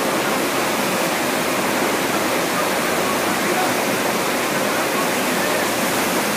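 Steady rush of water from a FlowRider surf simulator: a pumped sheet of water pouring up the padded slope and churning into white water.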